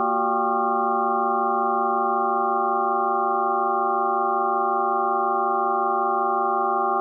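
Electronic drone from a Max/MSP patch: a chord of several pure, steady tones held without change.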